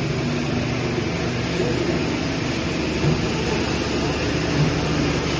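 Plastic scrap washing machine running with a steady, loud mechanical noise, with faint voices underneath.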